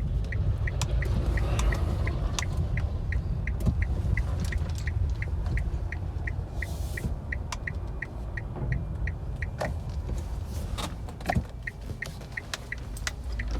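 Inside an electric Nissan Leaf's cabin, steady low tyre and road rumble from rolling over concrete slabs. The turn-signal indicator ticks evenly about three to four times a second throughout. A few short knocks come near the end.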